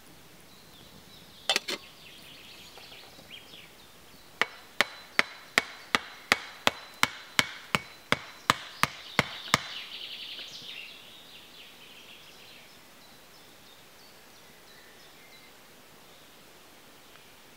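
A wooden stake being hammered into the ground: a quick double knock, then a run of about fifteen sharp, even blows a little under three a second, which stop a little past halfway. Birds call faintly behind.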